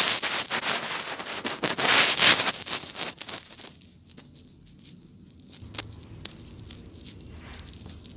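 Hand-tool work on a wooden cupboard: rough scraping and crackling with many sharp clicks and knocks, loudest in the first three seconds, then quieter with a few scattered knocks.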